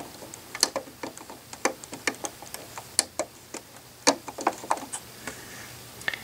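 Small plastic LEGO pieces clicking and tapping irregularly as a LEGO crib is handled and fitted back onto the floor studs, with the sharpest clicks about three and four seconds in.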